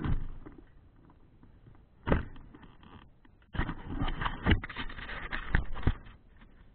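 Knocks and clattering from a Traxxas Revo 3.3 nitro RC truck being handled, with no engine running. There is one sharp knock at the start, another about two seconds in, and a couple of seconds of dense rattling and scraping on concrete in the second half.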